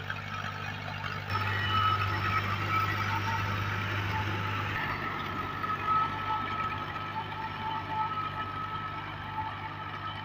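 Al-Ghazi tractor's diesel engine running under load as it drives a rotavator tilling the soil: a steady engine hum with a high, steady whine over it. The sound shifts abruptly about a second in and again about halfway through.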